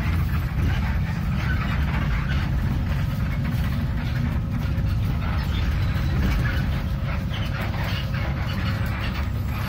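Golden Dragon XML6125J28C city bus heard from inside the passenger cabin: a steady low engine and drivetrain rumble with an even background of road and cabin noise.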